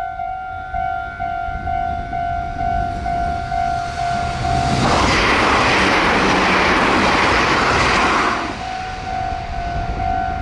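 Japanese level-crossing warning bell ringing in rapid, even electronic dings. About five seconds in, a train passes at high speed; its loud rushing noise drowns the bell for about three and a half seconds, then the dinging is heard again.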